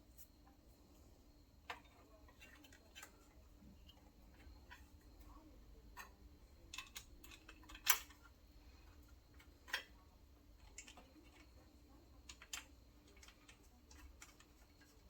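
Scattered light clicks and taps of hand tools and small metal parts being handled during carburetor work, with a couple of sharper knocks about eight and ten seconds in.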